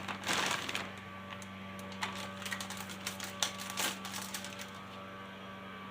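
Scattered clicks and light knocks, with a short rustling burst about half a second in, over a steady low hum.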